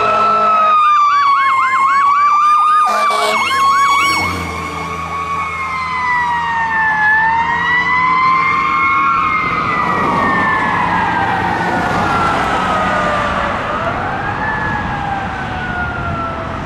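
Fire rescue truck siren on a 2005 Spartan Gladiator fire rescue truck, heard as it passes and drives off. It wails, switches to a fast yelp for a few seconds about a second in, then glides slowly down in pitch as it moves away. The truck's engine rumble is heard as it goes by about four seconds in.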